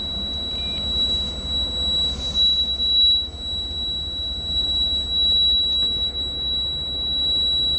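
City bus's low-air-pressure warning buzzer sounding one steady high-pitched tone over the diesel engine idling, while the compressor builds up brake air pressure.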